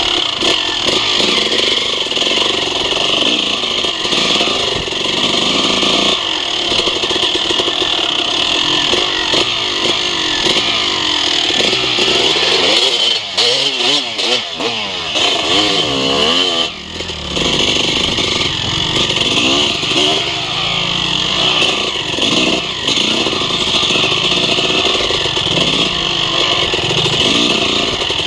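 Suzuki RM250 two-stroke single-cylinder dirt bike engine, ridden with the throttle working the revs up and down. The revs rise and fall repeatedly, with a brief drop off the throttle about two-thirds of the way through.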